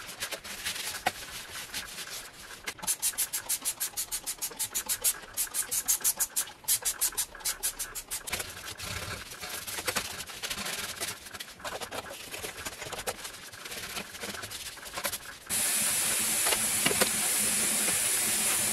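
A sponge scrubbing an electric coil stovetop in quick back-and-forth strokes, about five a second, then slower wiping and rubbing. About fifteen seconds in, a steady hiss of hot water running from the kitchen tap starts.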